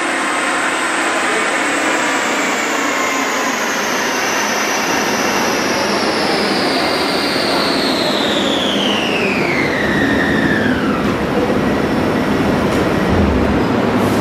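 2008 Shelby GT500 coasting down off throttle on a chassis dyno after a pull. The tires and rollers make a steady rumble, and a high whine falls steadily in pitch as the wheels slow, fading out about eleven seconds in.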